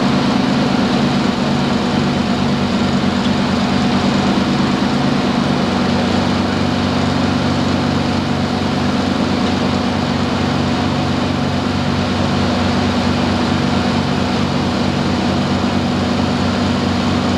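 The four Wright R-3350 radial piston engines of a Lockheed L-1049H Super Constellation, droning steadily as heard inside the passenger cabin, with a regular throb in the low drone.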